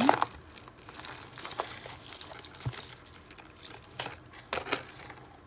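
Loose costume jewelry (metal bangles, chains and beads) clinking and jangling as a hand rummages through it in a box, a run of small irregular clinks and rattles.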